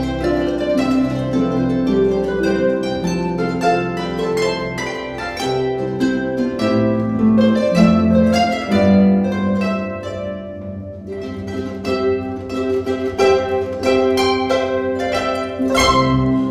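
An ensemble of five harps playing together: plucked notes ringing and fading over held bass notes, with a loud chord struck near the end.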